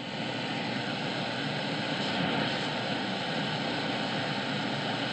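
Tecsun S-2200x shortwave receiver in AM mode giving out steady static and hiss, with faint steady whistles, as it is tuned across the 31-metre band between stations. The noise gets louder right at the start and then holds level.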